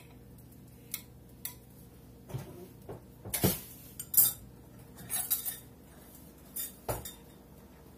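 Cookware and utensils clinking and knocking, a glass-lidded stainless pan handled on a glass-top electric stove: scattered sharp taps and clunks, the loudest a little past halfway.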